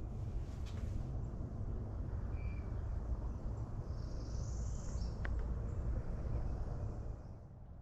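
Outdoor ambience dominated by a steady low rumble, with a single short bird chirp about two and a half seconds in.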